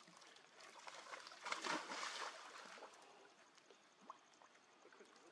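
A short burst of water splashing, loudest about two seconds in, with a few faint ticks around it.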